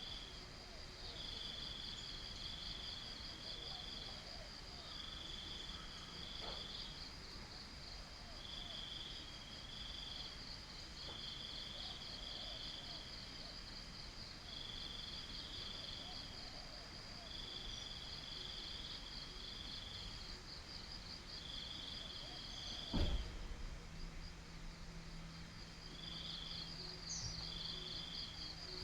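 Crickets calling in the open: one keeps up a steady high trill while another chirps in short bursts, two or three at a time with short gaps between. There is a single sharp knock about 23 seconds in, followed by a low, steady hum.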